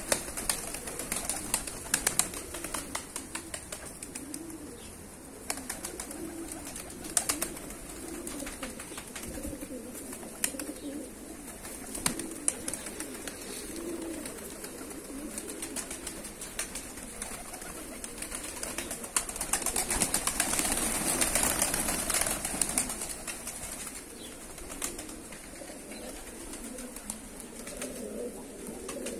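A flock of domestic tumbler pigeons cooing in a continuous low murmur, with frequent sharp wing claps and flapping. There is a louder stretch of flapping and rustling about twenty seconds in.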